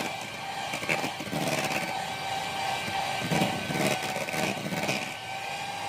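Small electric motor, an electric hand mixer, running with a steady whine, with scattered clatter and murmur from the surroundings.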